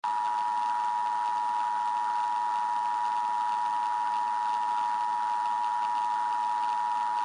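Emergency Alert System attention signal: the two-tone EAS alarm, two steady tones sounded together without a break, over a steady hiss of static.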